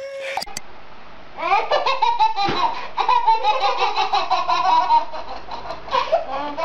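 Two babies laughing together in long runs of rapid, pulsing laughs that start about a second and a half in.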